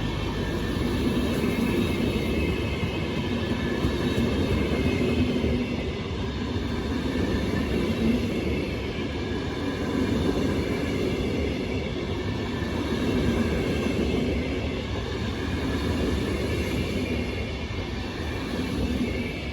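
Train running past on the rails: a steady, continuous rumble of wheels and cars, with faint high tones above it.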